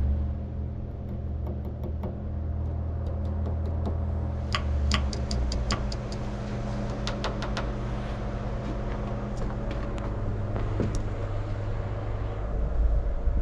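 A motor vehicle running with a steady low hum, with a run of sharp clicks in the middle.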